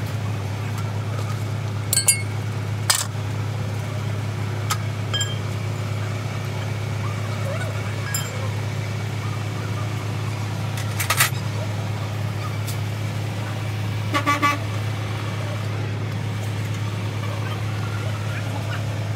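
A steady low engine drone, with a few sharp metallic clinks and clanks, some of them ringing briefly, from a spanner working the nuts on a truck's wheel hub.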